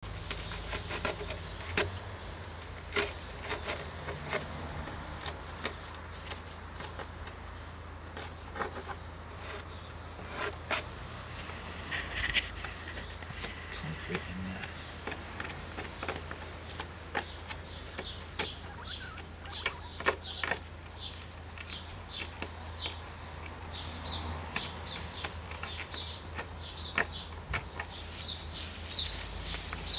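A pointed tool scratching and tapping lines into a weathered wooden cable-reel top, in short, irregular strokes over a low steady hum. Short high chirps come more often near the end.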